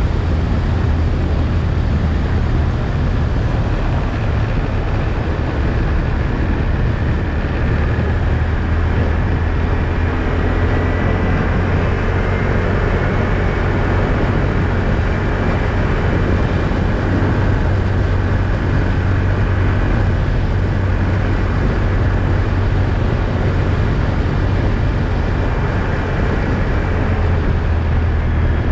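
ATV engine running steadily under way, with a constant low drone and steady noise over it.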